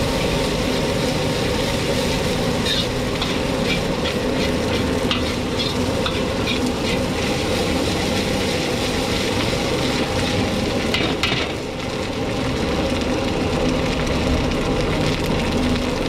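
Chopped ingredients frying in a black iron wok over a gas flame, a steady sizzle with the irregular scrape and clicks of a metal ladle stirring them.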